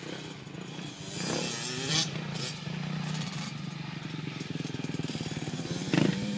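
Small two-stroke dirt bike engine running around the track, its pitch climbing as the rider revs up, once about a second in and again near the end. Two short knocks stand out, about two seconds in and near the end.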